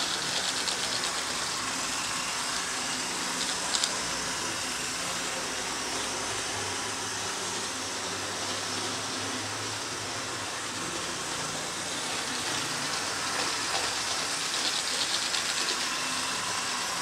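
Several HO-scale model diesel locomotives and their cars running at once on a table layout: a steady whirring hum of small electric motors and wheels rolling on the rails, with a few light clicks about four seconds in and again near the end.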